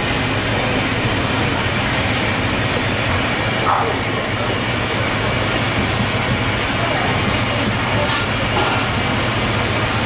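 Steady, loud drone of tofu-kitchen equipment with a low hum underneath, unchanging throughout.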